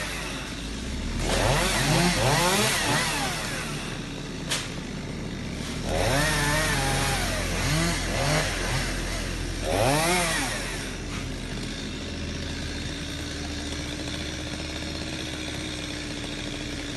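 Chainsaw engine revving up and down in several bursts, with a sharp click between them, then settling to a steady idle for the last several seconds.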